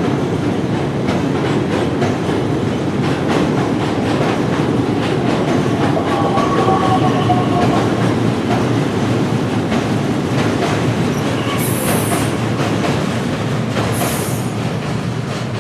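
Train running on rails: a steady rumble with wheels clicking over rail joints. A faint squeal comes in about six seconds in and fades two seconds later, and near the end there are two short high hisses.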